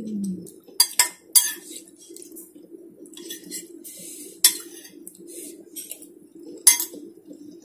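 Metal spoon clinking and scraping against a ceramic plate while eating: about five sharp clinks, with softer scraping between them, over a faint steady low hum.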